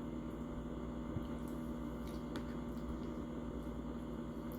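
Quiet room tone: a steady low hum with a few faint clicks, about a second and two seconds in.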